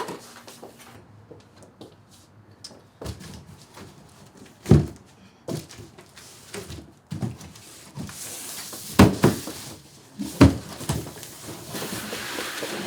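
A string of knocks and thumps, the loudest about five, nine and ten and a half seconds in, with stretches of rustling hiss near the end, like a door and things being handled.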